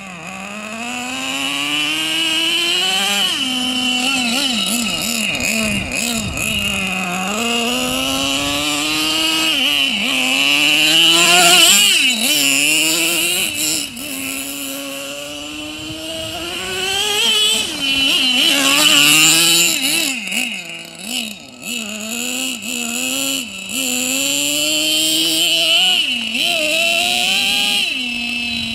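Small nitro glow engine of a radio-controlled truck running and revving up and down over and over as it is driven, the pitch rising and falling with each burst of throttle.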